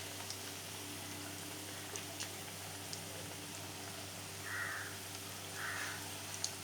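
Spoonfuls of wheat-flour, egg and coconut batter frying in hot oil: a steady sizzle with scattered small pops, and two short louder swells of hiss about two-thirds of the way through.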